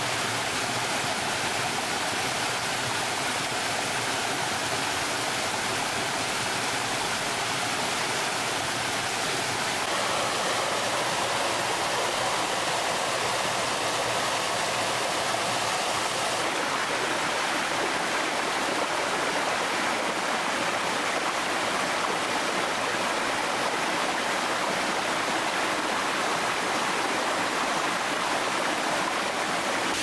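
Steady rush of falling and flowing water from a waterfall and stream, changing in tone abruptly about ten seconds in and again about sixteen seconds in.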